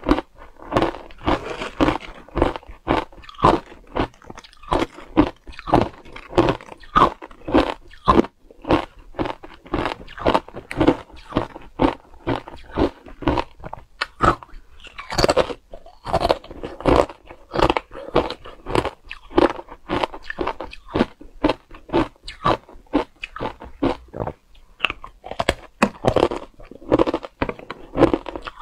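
Hard ice chunks dusted with matcha powder being bitten and chewed, picked up close by a clip-on microphone: a steady run of sharp crunches, about two a second.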